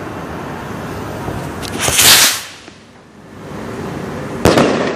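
Firecrackers going off: a loud hissing burst that swells and dies within about half a second, two seconds in, then a single sharp bang near the end.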